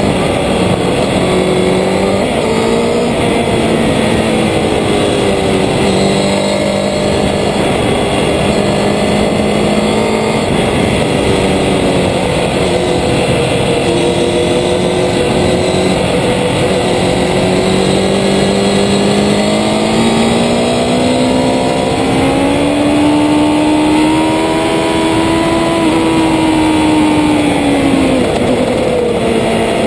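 Road-racing motorcycle engine running hard at high revs on track, with a steady rush of noise under it. The engine pitch holds fairly level for most of the stretch, climbs steadily about two-thirds of the way in, then falls away sharply near the end as the bike slows.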